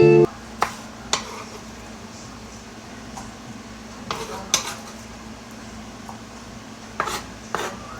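A metal utensil knocking and scraping in a pan while stirring, in scattered clicks over a faint steady sizzle of frying peppers, onion and sausage.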